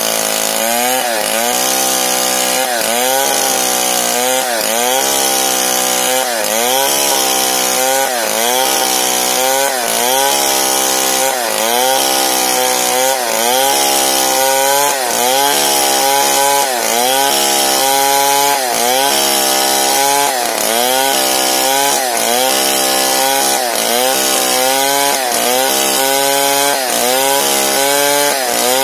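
STIHL 070 large two-stroke chainsaw ripping a big log lengthwise into a board at full throttle. The engine pitch dips under load and recovers about once a second as the bar is worked along the cut.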